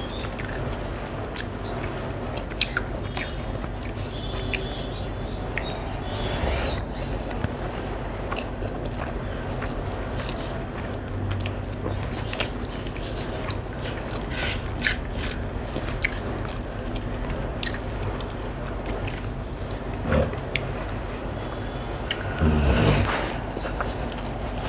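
Eating rice with the hand: fingers mixing wet rice and egg curry and scraping against the plate, with many small clicks and chewing sounds over a steady low hum. A louder, brief knock comes about twenty seconds in and a louder rustle near the end.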